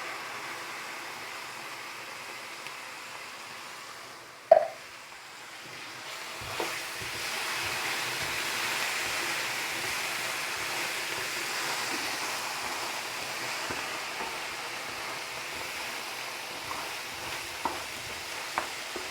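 Rice and tomato frying together in oil in a pan, with a steady sizzle that grows louder from about six seconds in. A sharp knock comes about four and a half seconds in, and a few light spoon taps come near the end as it is stirred.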